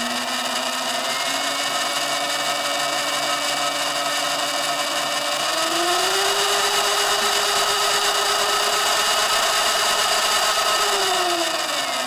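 Sur-Ron Light Bee X electric motor and belt-and-chain drive running with the rear wheel spinning off the ground: a steady whine that rises in pitch about halfway through as it speeds up, then falls near the end as it slows. The primary belt has just been re-tensioned, so little belt whine is left and the chain's ticking is easier to hear.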